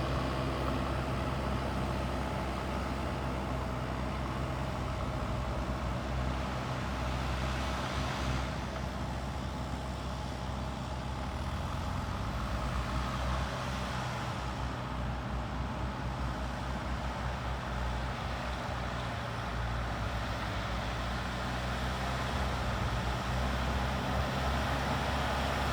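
JCB 3DX backhoe loader's diesel engine running steadily at a constant pitch.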